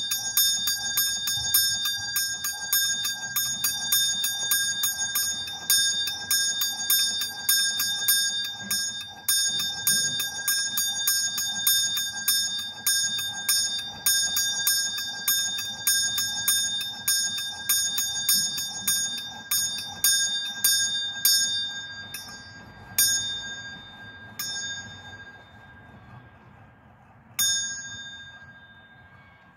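A small swinging bronze bell rung on its own, its clapper striking quickly and evenly, two to three times a second, giving a high, bright ring. From about two-thirds of the way in the swing dies down: the strikes thin out to a few last single strokes, the final one near the end ringing away.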